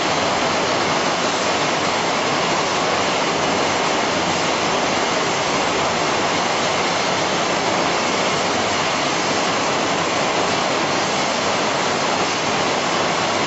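Steady, even rushing hiss without rhythm or pitch.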